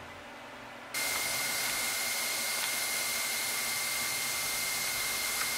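Quiet room tone for about the first second, then a horizontal bandsaw cutting through 4-inch 2024 aluminium round bar: a steady hiss with a thin, high whine held over it.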